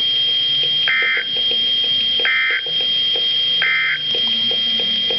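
Emergency Alert System end-of-message from a NOAA Weather Radio broadcast: three short bursts of SAME digital data tones, about a second and a half apart, marking the end of the warning. A steady high-pitched whine runs underneath.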